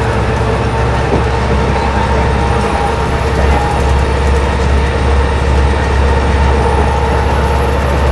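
Inside a Stewart & Stevenson Apollo T-40 transit bus at freeway speed: its Detroit Diesel Series 50 inline-four diesel drones steadily under road noise, with a steady whine on top. The low drone grows stronger about three seconds in.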